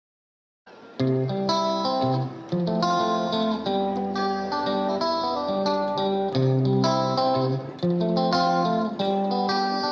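Background music led by a plucked guitar, starting about a second in and then playing steadily.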